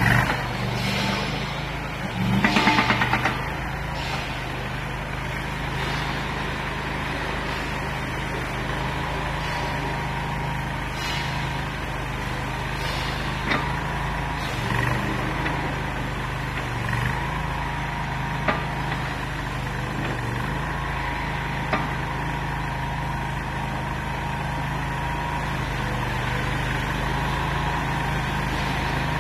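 Mini skid steer loader's engine running steadily, with a thin steady high whine over it. A loud rapid rattle comes about two to three and a half seconds in, and a few short sharp knocks follow later.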